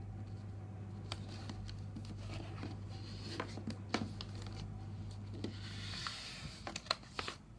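A sheet of paper being folded and creased by hand, rustling and rubbing as the fold is pressed flat, with a few sharp paper ticks near the end.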